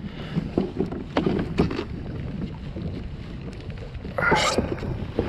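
Wind rumbling on the microphone aboard a fishing kayak, with scattered knocks and clicks of handling and a brief louder rush of noise about four seconds in.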